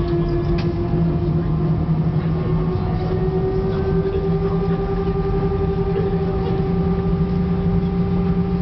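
Airbus A319's CFM56 jet engines at taxi idle, heard from inside the cabin as a steady hum with whining tones that rise slightly in pitch about three seconds in, as thrust is added.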